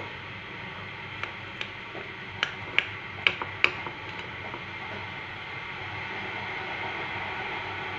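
A metal fork clicking against a ceramic plate while cutting a pancake: about six sharp clinks between one and four seconds in, the loudest four close together near the middle, over a steady background hiss.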